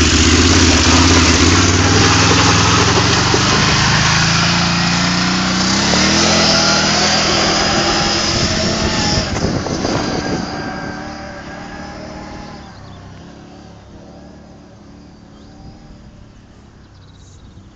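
Can-Am Outlander ATV engine running loud up close, revving up with a rising pitch about five seconds in, then fading steadily as the quad drives off into the distance.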